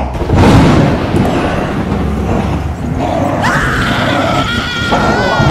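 Thunderclap with a rolling rumble just after the start. About three and a half seconds in comes a long high cry that slides slightly down in pitch and wavers near its end.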